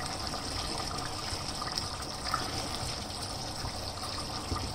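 Watery chicken curry simmering in a pot over a gas burner: a steady bubbling hiss, with light scrapes of a plastic spatula stirring it.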